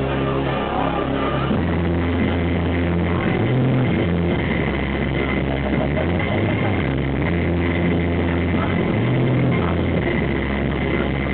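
Hard electronic dance music from a DJ set, played loud over a club sound system, with a heavy bass line that changes note every second or so. The sound is dense and dull, with no treble.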